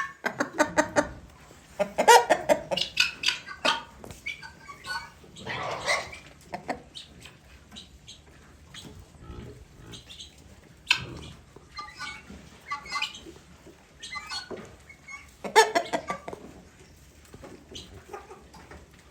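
Domestic guineafowl calling: clusters of harsh, rapid, repeated calls, with louder bursts about 2, 6, 11 and 16 seconds in.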